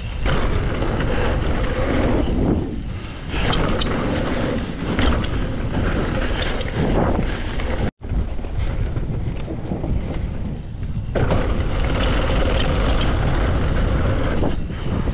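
Wind rushing over the microphone and dirt-trail noise from a mountain bike riding downhill at speed, loud and unbroken. It cuts out for an instant about halfway through.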